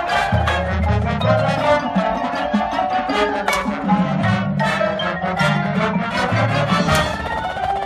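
High school marching band with its percussion section playing a competition show: brass over low bass notes with many sharp percussion strikes.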